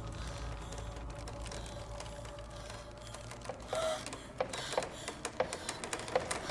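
Horror film soundtrack: a low steady hum, then from about halfway a run of irregular clicks and knocks with a few short tones.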